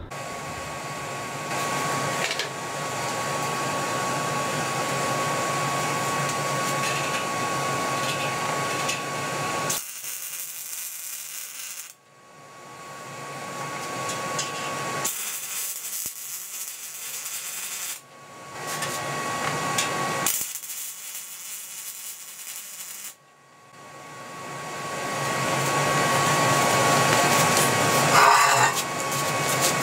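Wire-feed (MIG) welding arc crackling on steel, in four runs of a few seconds each with short pauses between, as handlebar handles are welded onto the steel compressor tank. A thin steady tone comes and goes with each run.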